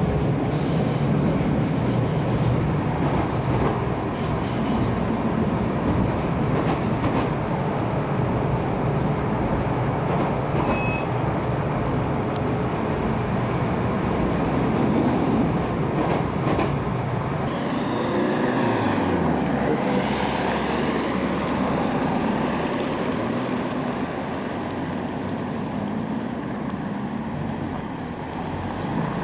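Tram running noise heard from inside the passenger car: a steady rumble of motors and wheels on rails. Around eighteen to twenty seconds in, the pitch sweeps down and then up again.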